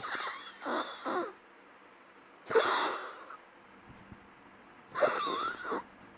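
Wheezy coughing in spells: three quick coughs at the start, another about two and a half seconds in and another about five seconds in.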